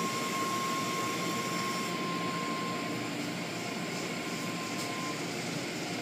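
Automatic car wash machinery working over a car, heard from inside the cabin: a steady rushing of water spray and cloth wash strips sweeping across the glass, with a thin steady whine that stops about five seconds in.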